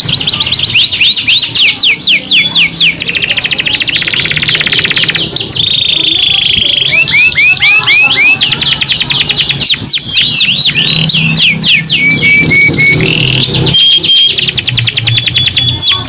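Yellow domestic canaries singing loudly and without pause in long rolling song: rapid trills of quick rising and falling notes repeated many times a second, broken by a few short held whistles.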